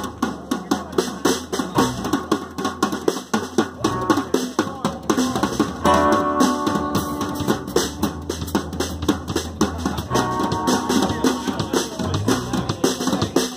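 Live band playing an instrumental passage without vocals: strummed acoustic guitar over a drum kit keeping a steady beat. A lead instrument plays held melody notes about six seconds in and again about ten seconds in.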